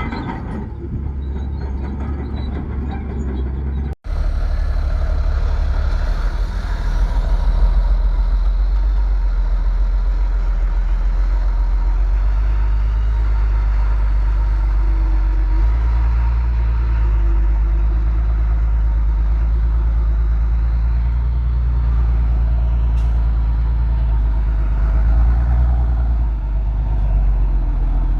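Heavy diesel earthmoving machinery running with a deep, steady engine rumble; the sound cuts out for a moment about four seconds in.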